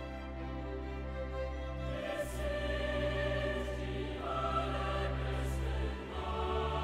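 Background music: slow sustained choral and orchestral chords that change every couple of seconds.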